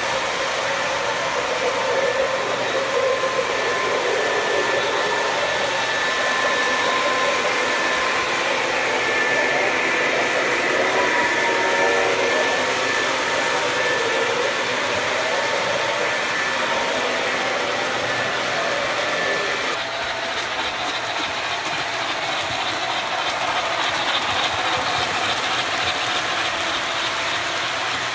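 O gauge three-rail model trains running on the layout: a steady rumble of wheels on track with the motors running and a thin steady whine. The sound shifts about twenty seconds in.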